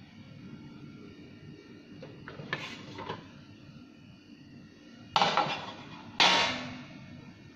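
Handling noise on a plastic digital weighing scale: a few light clicks, then two louder knocks about a second apart as a hand moves a small object on the platform and handles the scale.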